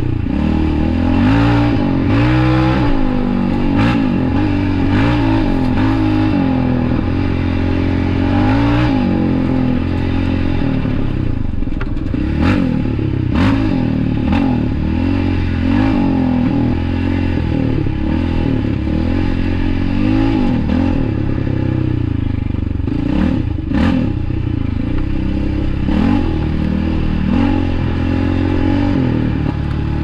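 Yamaha Raptor 700 ATV's single-cylinder engine, fitted with an HMF aftermarket exhaust, running under load on a trail, its note rising and falling again and again as the throttle is opened and closed. A few sharp knocks come through, two around the middle and two more later.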